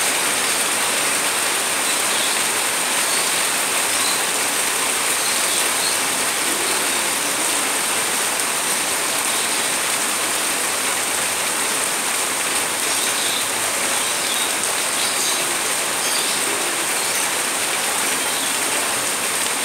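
Heavy rain pouring down steadily, an even, dense hiss that neither builds nor stops.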